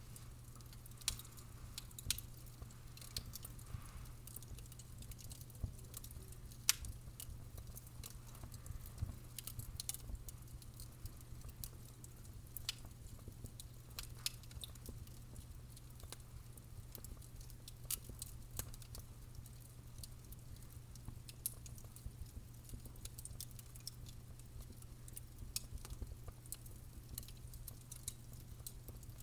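Fire crackling and popping: irregular sharp pops and snaps, some louder than others, over a low steady rumble.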